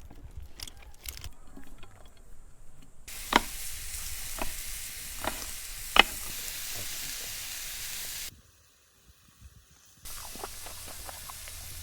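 Food sizzling on a hot barbecue grill, with a few sharp pops. The sizzle starts about three seconds in, drops out for a moment after about eight seconds, and comes back near the end with small crackles.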